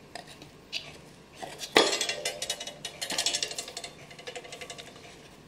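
Light wooden knocks and clicks from handling a small wooden cuckoo clock case as its thin back panel is fitted: one sharper knock about two seconds in, then a couple of seconds of quick, irregular clicking and rattling.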